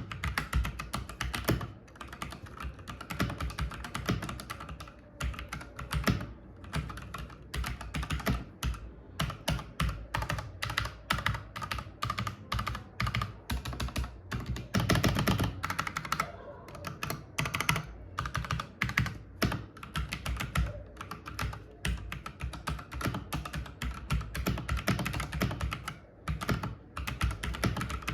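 Typing on an E-YOOSO Z94 mechanical keyboard with Outemu red linear switches and ABS keycaps: a continuous, fast clatter of keystrokes, with a denser, louder run about fifteen seconds in.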